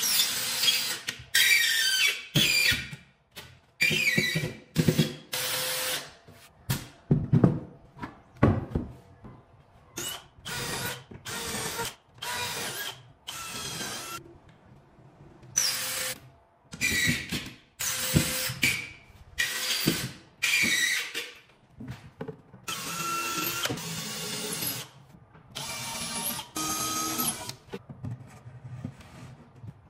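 Cordless drill-driver driving screws into laminated panels, running in a series of short bursts of about a second each with brief pauses between.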